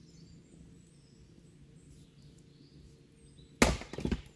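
A quiet stretch, then a sudden loud knock about three and a half seconds in, followed by a brief clatter of smaller knocks.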